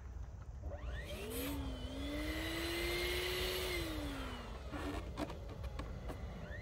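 Electric balloon pump inflating a balloon: its motor whine spins up about a second in, runs steadily for about three seconds, winds down, and starts up again near the end.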